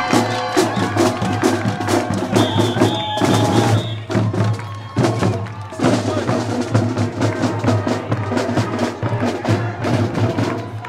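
Marching drums playing a steady beat of sharp strikes, with a low steady hum underneath.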